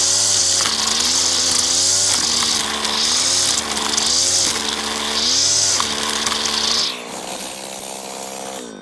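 Stihl FS85 strimmer's small two-stroke engine running at high revs while cutting, its note dipping and recovering under load several times. About seven seconds in it drops back to a lower, steady note.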